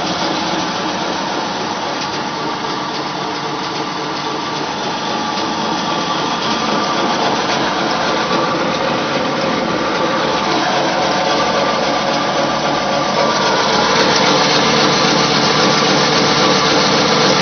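Flat die pellet mill running steadily while pressing feed into pellets: a dense mechanical drone with a steady hum, getting somewhat louder about three-quarters of the way through.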